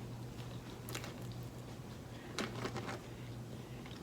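Faint chewing with a few soft, wet mouth clicks close to the microphone, about a second in and again around two and a half seconds in, over a low steady hum.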